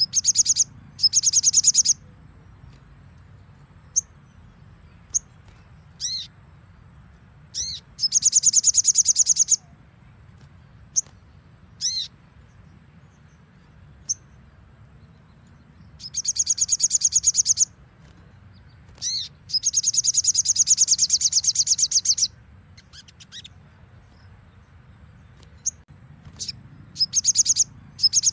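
Sogon (little spiderhunter) singing its rapid 'nembak' song: high, fast rattling trills of one to two seconds, about six of them, with short single chips and notes in the gaps.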